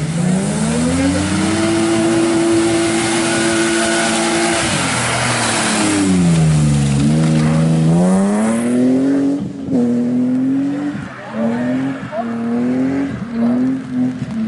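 Racing BMW E36 3 Series engine pulling hard through a slalom on a wet road: the revs climb and hold high for a few seconds, drop near the middle as the driver lifts, climb again, then rise and fall in short throttle bursts through the last few seconds. Tyre hiss from the wet surface rides along through the first half.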